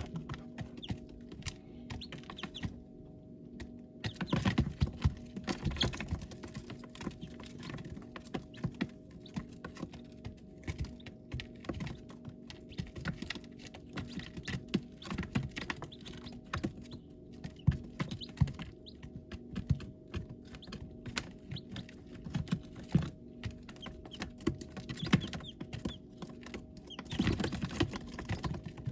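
Baby chicks pecking and scratching: many irregular small taps and clicks, over a steady low hum.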